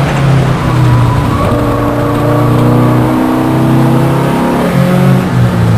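VW Rabbit race car's engine pulling hard at full throttle, its pitch climbing steadily, with brief breaks about three and five seconds in.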